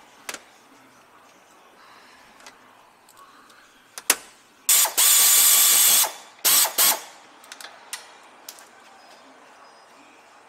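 Pneumatic air ratchet backing out transmission pan bolts: a couple of clicks, then one hissing run of about a second and a half, then two short blips.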